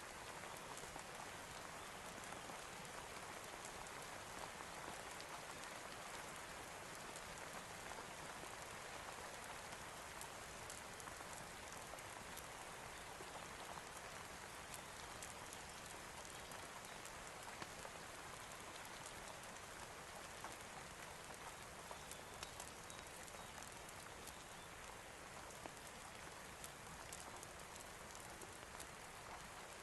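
Steady rain falling: an even, soft hiss with many scattered light ticks throughout.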